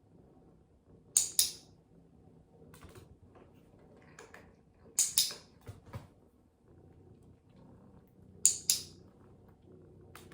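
A training clicker pressed three times, each a sharp double click (press and release), used to mark the cat's wanted behaviour. There are fainter small ticks in between.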